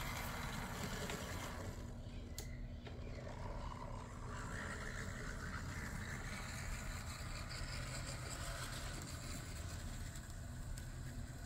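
Z scale model diesel locomotive running steadily around the track: the faint whir of its small electric motor and the patter of its wheels on the rails.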